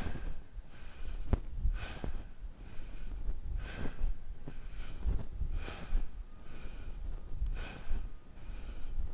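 A man breathing in and out in rhythm with bodyweight air squats, about one breath a second, the stronger breaths alternating with softer ones, over low dull thumps.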